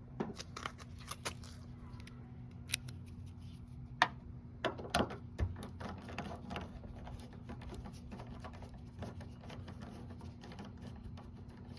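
Screwdriver loosening the door-handle retaining screw inside a Toyota Tundra door: scattered small clicks and scrapes of the tool working the screw, with a few sharper ticks around four and five seconds in.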